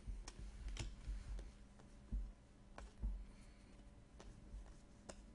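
Panini Contenders football trading cards being flipped through by hand, each card slid off one stack onto another: faint, scattered clicks of card edges, with two soft low bumps of handling a little after two and three seconds in.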